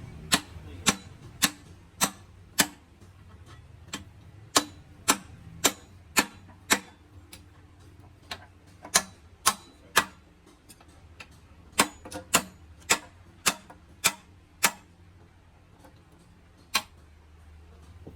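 Sharp metal-on-metal hammer blows during a gearbox teardown, struck in runs of a few evenly spaced hits about two a second, with short pauses between runs.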